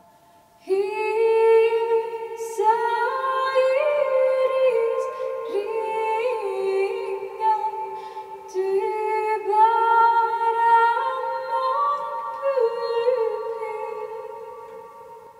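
Solo female voice singing a slow, wordless a cappella melody in long held notes that step gently from pitch to pitch, fading toward the end.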